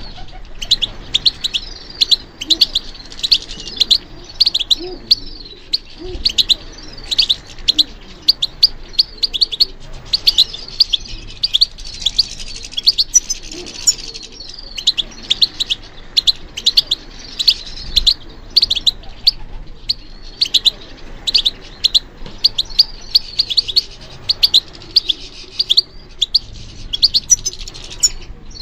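European goldfinch singing: a long, fast run of twittering and tinkling high notes with only short breaks, softer for a couple of seconds around the middle.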